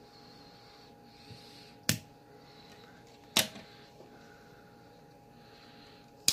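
Three sharp clicks, about a second and a half and then three seconds apart, from the hand tools used to trim and singe paracord ends, over a faint steady hum.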